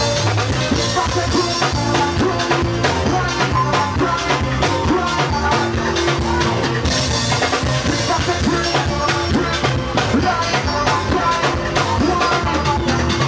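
Upbeat music with a steady drum beat and a bass line.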